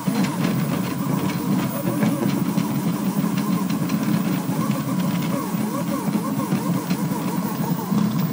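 Delta 3D printer printing at high speed, about 550 mm/s moves: its stepper motors whine in quick rising and falling chirps as the print head changes direction, over a steady hum, with a faint steady high tone and light clicks.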